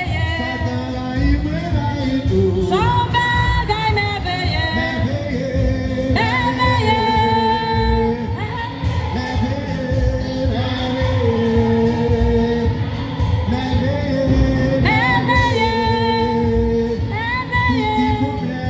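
A hymn sung with instrumental accompaniment and a steady beat, a woman's voice leading the melody.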